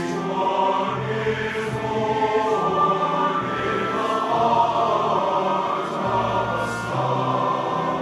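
A large men's chorus singing slow, sustained chords. The low voices hold long notes that change every second or two.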